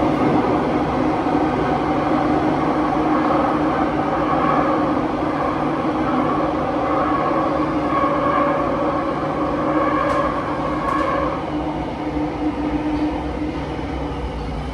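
Interior of a Kawasaki-CRRC Qingdao Sifang T251 metro train running between stations: a steady rumble with loud wind noise and a whine of several steady tones, the highest of which fades out about 11 seconds in.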